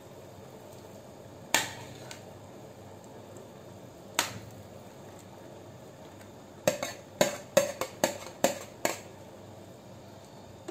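Kitchen utensils and dishes knocking against a pan as boiled potato pieces are tipped into simmering gravy: two single sharp clicks, then a quick run of about eight clicks and knocks in the second half.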